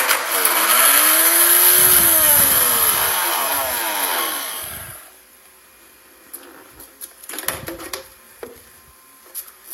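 Blender motor on turbo spinning with a mobile phone in the jar, grinding and rattling. Its pitch rises, then falls as the motor slows and stops about five seconds in, the phone having got stuck against the blades. A few faint knocks follow.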